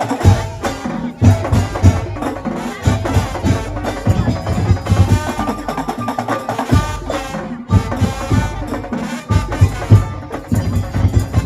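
Madurese ul daul music: rhythmic drums and wooden percussion with heavy bass beats, and a pitched tune running over them.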